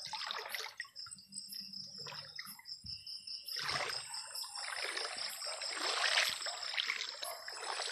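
Shallow stream water sloshing and trickling as someone wades and searches the streambed, busiest over the second half. A steady, evenly pulsing high trill runs underneath.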